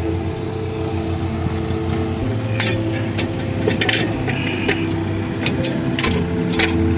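Background music with sustained low notes that change pitch a couple of times, over a series of sharp, irregular metallic clinks from about two and a half seconds in, as clutch parts and tools are handled.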